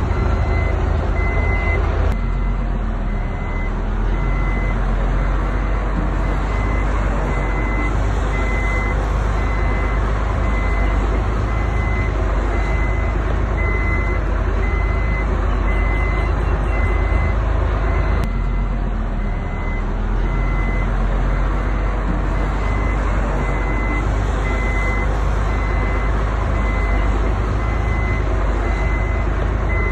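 Heavy construction machinery running loudly, with a reversing alarm beeping at a steady, even pace. The engine sound changes abruptly twice.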